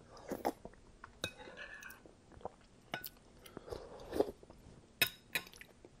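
Close-miked mouth sounds of eating a spoonful of thick broccoli cheddar soup: soft wet chewing and swallowing with small clicks, then a sharp clink about five seconds in as the metal spoon goes down into the glass dish.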